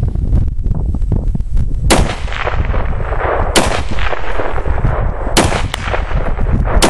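SVT-40 Tokarev semi-automatic rifle firing Chinese surplus 7.62x54R rounds. Several sharp shots come a second or two apart, each with a short echo, over steady wind buffeting the microphone.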